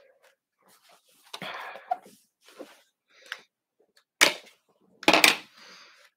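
Handling noise from a Framework laptop as its expansion card modules are worked out of their slots: a rustle about a second in, small clicks, then two sharp knocks, the second near the end the loudest.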